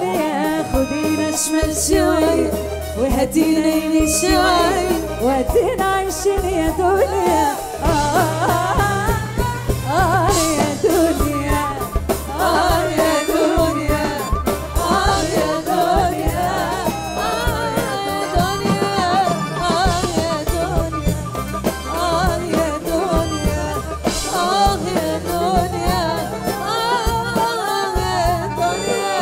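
A woman singing an Arabic pop song live into a microphone, her melody heavily ornamented, backed by a band with a steady beat and a frame drum with jingles (riq).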